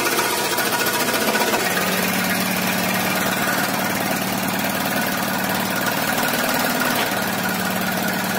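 Bukh marine diesel engine in a lifeboat running steadily, a continuous diesel clatter with a steady low tone coming in about two seconds in.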